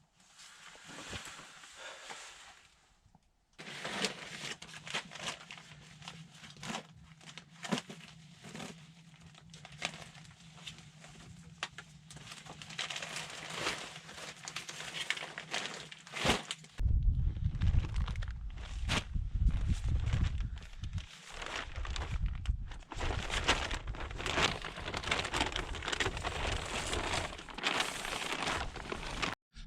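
Crinkling and crunching sounds made up of dense runs of small crackles, in several cut-together segments; from about 17 seconds in, a heavy low rumble joins them.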